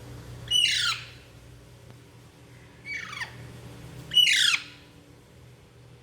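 Young Alexandrine parakeet squawking: three short, harsh calls, each dropping in pitch, the last the loudest.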